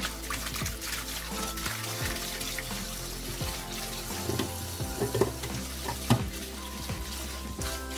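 Kitchen tap running into a bowl in a stainless steel sink while hands swish and rinse leafy greens (chamnamul) in the water. There are two sharper splashes, one a little past halfway and one about six seconds in.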